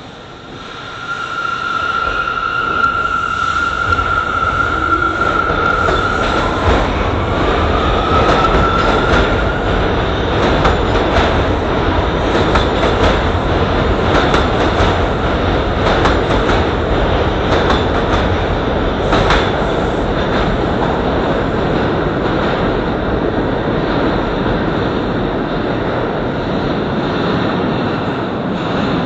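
R179 New York City subway train pulling out of an underground station: a steady high electric whine that rises in pitch as it accelerates, then loud rumble with rapid wheel clicks over the rail joints as the cars pass, one click much louder about 19 seconds in, the rumble carrying on in the tunnel after the last car.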